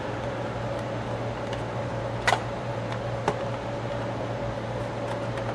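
Two sharp clicks from the plastic and metal parts of a slide projector's slide-changer mechanism being worked by hand to free a jammed slide holder, about a second apart, the first louder, over a steady low hum.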